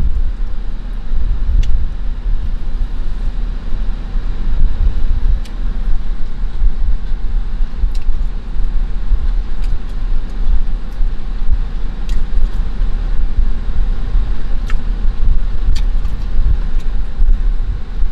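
Low, gusty rumble of wind buffeting the microphone, with a few faint clicks scattered through it.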